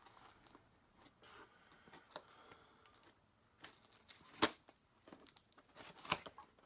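A package being worked open by hand: scattered rustling and tearing of packaging, with two sharp snaps, one past halfway and one near the end.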